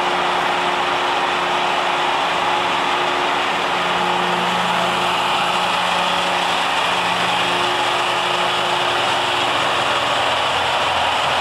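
Mobile transformer-oil purification unit running steadily: a continuous machinery hum from its pumps, with a low tone that grows stronger for a few seconds midway.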